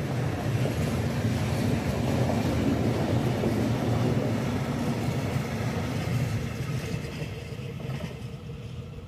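Freight train of log-laden and empty stake wagons rolling past, steel wheels rumbling on the rails. The noise fades away from about six seconds in as the last wagon passes.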